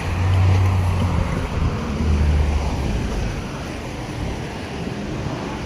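Wind buffeting the microphone, with a low rumble in two gusts, at the start and about two seconds in.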